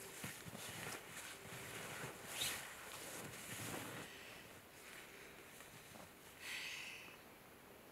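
Faint, soft rustling of a person's winter clothing against snow as he shifts about inside a snow cave, with a few brief swishes.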